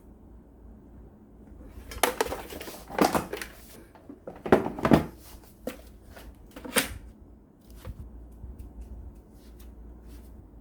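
Handling noise: small hard objects, likely hand tools, clattering and knocking as they are picked up and set down, in a few bunches of clatter followed by lighter ticks near the end.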